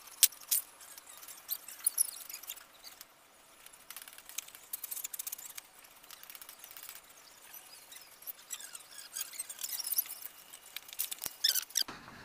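Socket on a long extension bar turning a bolt into a steel engine-mount plate: irregular light metallic clicks and high squeaks, with a few sharp clicks in the first two seconds.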